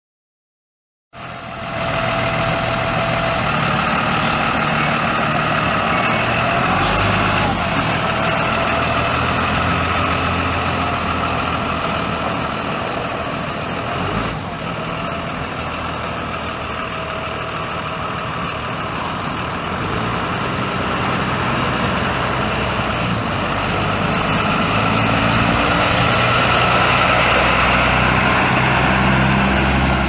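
Caterpillar 3116 six-cylinder turbo diesel of a school bus running steadily, coming in about a second in and getting a little louder in the last few seconds.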